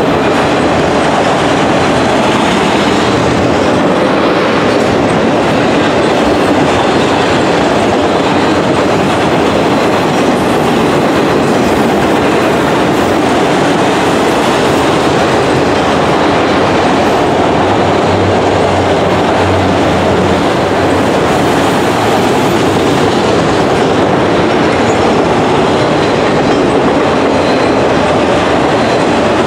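Autorack freight cars of a long train rolling past: a loud, steady rumble and rattle of steel wheels on the rails.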